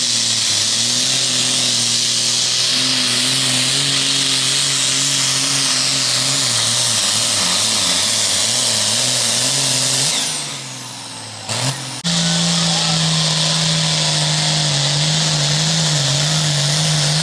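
Pulling-tractor engines running flat out under load while dragging a weight-transfer sled. First a Minneapolis-Moline pulling tractor's engine note wavers up and down. After a short drop in level just past the middle, a second tractor's engine takes over with a steadier, slightly higher drone.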